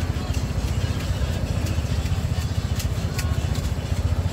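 A steady low mechanical rumble, like an idling engine, with faint scattered clicks above it.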